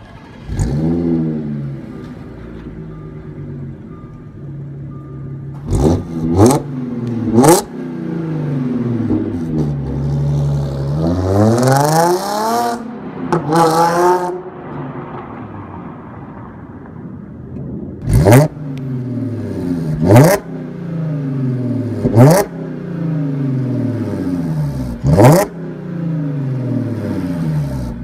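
Audi S4 B8's 3.0-litre supercharged V6 through an aftermarket exhaust, revved while standing still: a flare about half a second in settles to a steady idle. Quick sharp throttle blips follow, three around six to seven and a half seconds and four more in the second half, with one longer rev that rises and falls in the middle.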